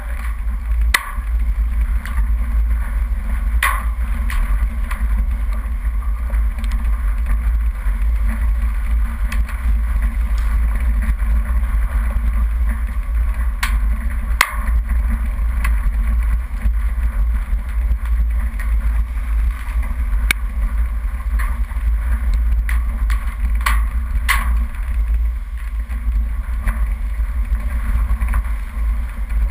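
Off-road vehicle driving on a rough dirt track, a steady low rumble of engine, tyres and wind picked up by a camera mounted on its bonnet, with scattered sharp knocks and clicks.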